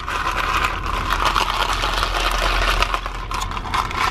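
Plastic straw stirring ice in a plastic cup of iced coffee: a continuous crackly rattle of ice and plastic, over the low hum of a car engine idling.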